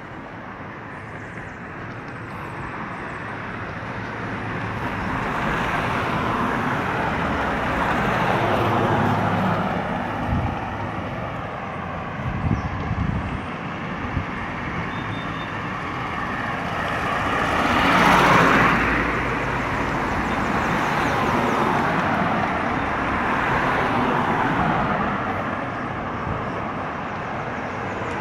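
Road traffic: cars driving past one after another, each swelling and fading, with the loudest pass about eighteen seconds in. A few brief low bumps come near the middle.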